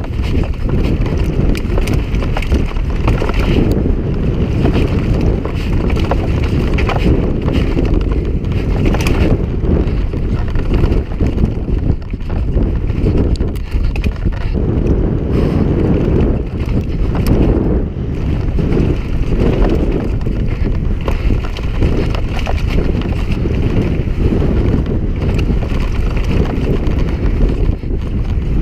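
Heavy wind noise on the camera's microphone during a fast mountain-bike descent, with the bike rattling and clattering over a rocky trail.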